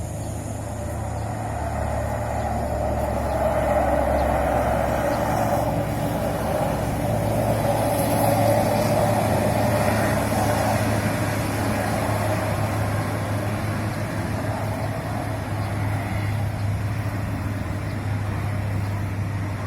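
A tour bus passes along the road. Its engine and tyre noise swells over several seconds and then slowly fades, over a steady low hum.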